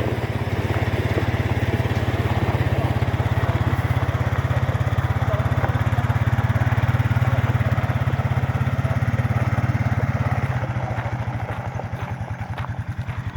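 A vehicle engine running steadily close by, then dropping to a slower putter about ten seconds in as it eases toward idle.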